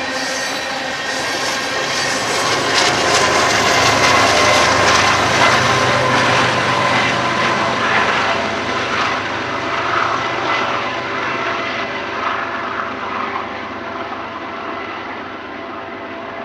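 BNSF diesel-electric freight locomotive at the rear of a grain train passing with its engine running, over the rumble of steel wheels on the rails. It grows loudest a few seconds in, then fades steadily as the train moves away.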